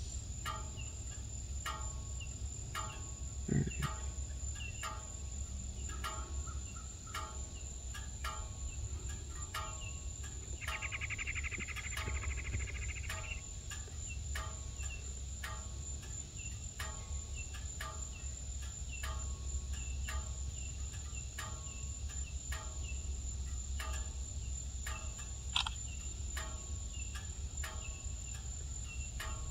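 Insects calling, crickets among them: a steady high-pitched drone with short chirps repeating at an even rhythm, and a buzzy trill for a couple of seconds about eleven seconds in. A low rumble runs underneath.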